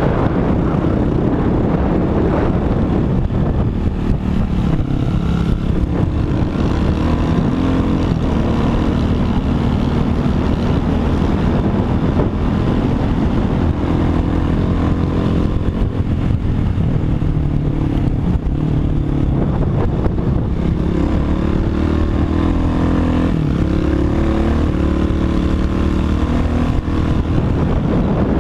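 Dirt bike engine running at riding speed, its pitch rising and falling as the throttle changes.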